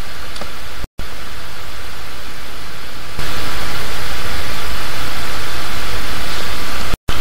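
A steady rushing noise with no tone or rhythm in it. It cuts out to silence for an instant just under a second in and again near the end, and gets louder about three seconds in.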